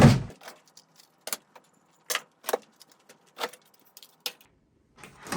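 A loud thump, then a string of sharp clicks and clatters, about one every half second to second: hard plastic fire alarm devices being handled, knocked together and set down while being sorted.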